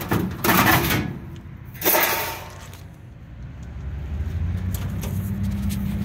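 Sheet-metal access panel of a gas package unit being worked loose and pulled off, metal scraping and clattering in two bursts in the first two seconds. A low steady hum builds up in the second half.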